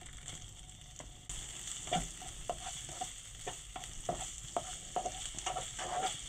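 Bacon lardons and chopped garlic sizzling in vegetable oil in a frying pan. The sizzle sets in a little over a second in as the lardons land. A spatula scrapes and taps against the pan about twice a second as they are stirred.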